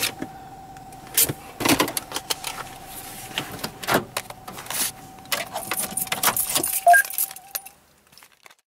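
Car keys jangling and clicking, with knocks of handling inside the parked car, over a steady high warning tone from the car that cuts off near the end.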